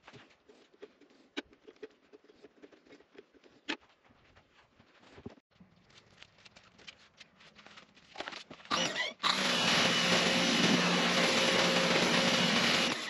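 A Stanley SXPW22E electric pressure washer starts up about two-thirds of the way in, then runs steadily and loudly. A hum from the motor and pump sits under the hiss of the water jet spraying onto a bicycle. Before it starts there are only faint clicks and handling knocks.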